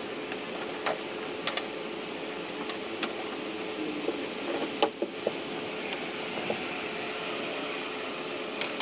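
Steady fan-like hum with a constant tone, under scattered light clicks and taps from a hand roller being worked over resin-wet fiberglass tabbing.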